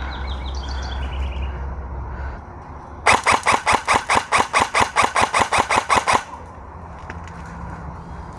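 Airsoft rifle firing a full-auto burst of about three seconds, starting about three seconds in: an even, rapid rattle of sharp shots.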